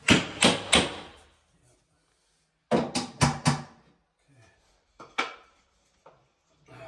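Sharp knocks on wood: three quick strikes, a pause, another three, then a single knock, as nails are driven into the wooden shelving.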